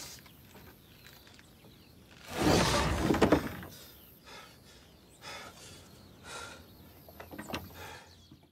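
A person groaning and breathing hard in pain, with one loud outburst about two and a half seconds in and shorter, fainter groans after it.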